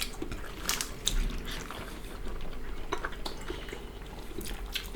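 Wet mouth sounds of eating boiled pork and broth: chewing and slurping, with scattered small clicks and light clinks of dishes.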